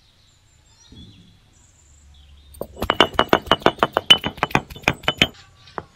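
A quick, even run of about eighteen sharp knocking strikes with a bright clink, some seven a second, lasting nearly three seconds. A single strike follows near the end. This is a kitchen tool striking hard during masala preparation.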